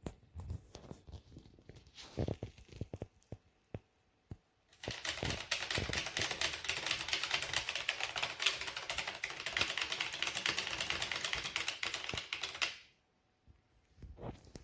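Keys of a RedThunder K900 semi-mechanical keyboard being pressed: scattered single clicks for a few seconds, then about eight seconds of fast, dense typing that stops abruptly, and a few more clicks near the end.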